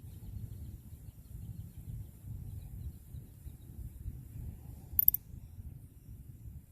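Low, uneven wind rumble on the microphone, with a faint run of small ticks in the first few seconds and one sharp click about five seconds in.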